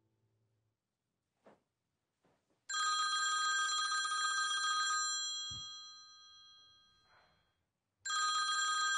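Mobile phone ringing with a trilling telephone-bell ringtone. One ring of about two seconds dies away, then a second ring starts about three seconds later.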